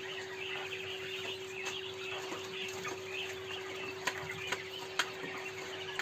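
Coop birds chirping and clucking on and off, over a steady hum. A few sharp clicks come about four and five seconds in.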